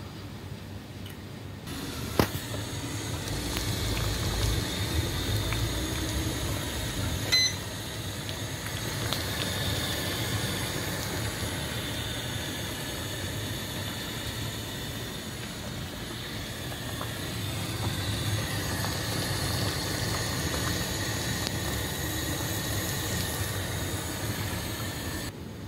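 Pot of water boiling on a gas stove burner, a steady bubbling. There is a sharp click about two seconds in and a short beep about seven seconds in.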